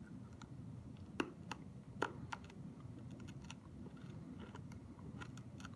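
Faint, scattered clicks of a hard candy being sucked and moved around in the mouth, knocking against the teeth, over a low room hum.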